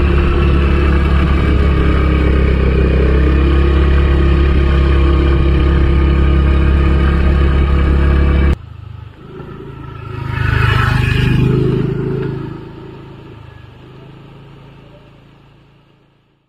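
Riding noise on a moving scooter: the motor running under heavy wind rumble on the microphone, cut off abruptly about eight and a half seconds in. A quieter vehicle engine then swells and fades away toward the end.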